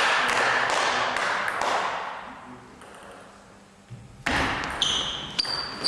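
Table tennis rally: a celluloid ball clicking off paddles and the table, starting over a loud rush of noise that fades over about two seconds. About four seconds in a sudden loud knock, then short high squeaks of shoes on the wooden floor.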